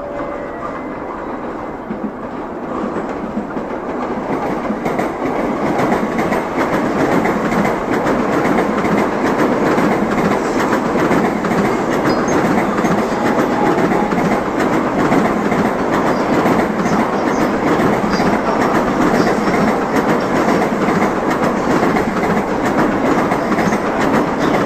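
A 16-car Tokaido Shinkansen bullet train passing at speed, a steady rushing noise of wheels on rail. It builds over the first few seconds as the train comes alongside, then holds loud.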